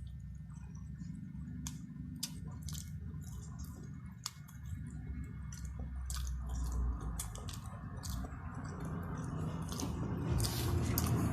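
Wet chewing and mouth smacks of someone eating chicken curry and fried chicken: many short, sharp clicks at an irregular pace. A low rumble underneath grows louder near the end.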